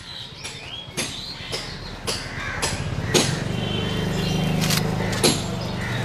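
Street sounds: a motor vehicle's engine running close by, growing louder in the second half, with a few sharp clicks and knocks scattered through.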